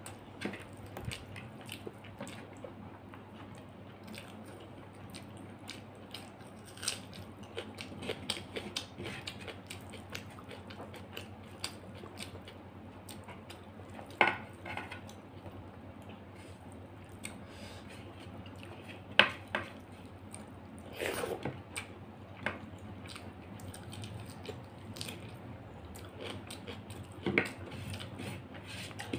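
Mouth sounds of eating rice and fish by hand, chewing and lip smacks, with fingers scraping and gathering rice across a ceramic plate. Scattered small clicks throughout, with a few sharper ones, the loudest about two-thirds of the way through.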